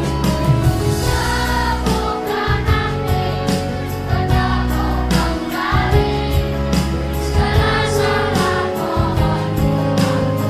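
A children's choir of sixth-grade pupils singing together over an accompaniment with low bass notes and a steady beat.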